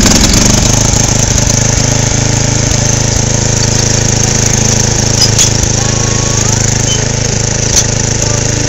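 Craftsman 10 HP riding lawn mower engine, freshly started on the electric starter with the choke on, running steadily.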